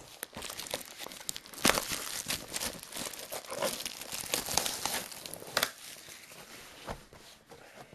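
Plastic shrink wrap being torn and crumpled off a sealed trading-card box: a dense run of crinkling and crackling with sharp snaps, thinning out near the end.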